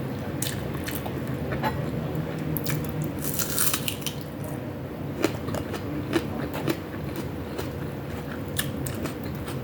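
Close-miked eating: biting and chewing food, with a crunchy, crackling stretch about three seconds in and a few sharp clicks later on.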